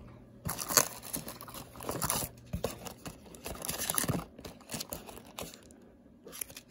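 Plastic packaging wrap and cardboard crinkling and rustling in uneven bursts as hands dig through a shipping box, easing off after about five seconds, with a short rustle just before the end.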